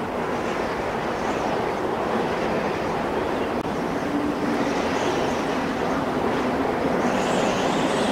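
Wind through a tree's leaves: a steady rustling rush that swells slightly and cuts off abruptly at the end.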